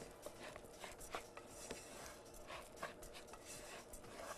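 Spoon stirring dry rice in a metal pot while it is sautéed with onion: faint scraping and rustling of grains with scattered light clicks of the spoon.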